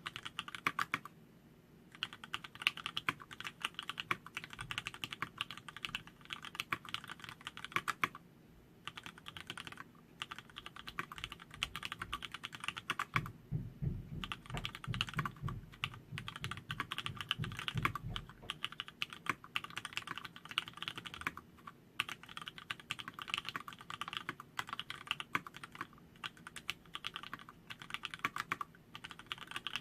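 Continuous fast typing on an LZ-IRON custom mechanical keyboard with Cherry MX vintage Black linear switches, 62 g springs, an aluminium plate and black PD keycaps: a dense run of key clacks with a few brief pauses.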